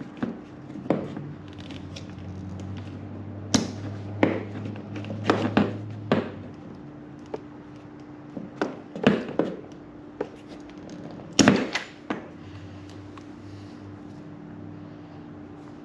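Cutters snapping and clunking as they work through the trolling motor's heavy power cable: a dozen or so irregular sharp snaps and knocks over a steady low hum.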